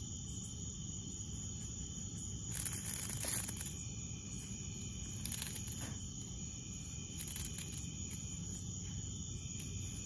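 Steady high-pitched drone of insects calling at night, several even tones held without a break. Short bursts of rustling in the grass come through it, the loudest about three seconds in and another near the middle.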